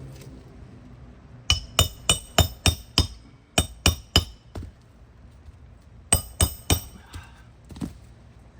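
Hammer striking a roofing nail with sharp metal-on-metal clinks, in three quick runs of about six, four and three blows, then one lighter tap near the end: hand-setting a crooked nail that the roof snake could not seat.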